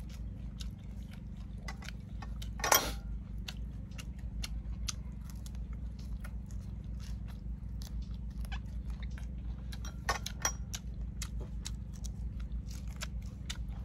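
A person eating balut, chewing with many small wet mouth clicks and two louder crunches, about 3 s and 10 s in.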